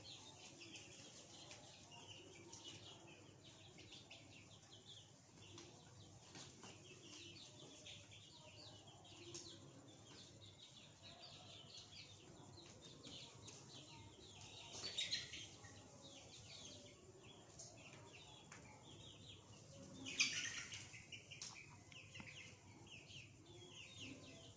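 Young chicks peeping steadily, a dense chatter of short, high cheeps. Two louder flurries of cheeping come about fifteen and twenty seconds in.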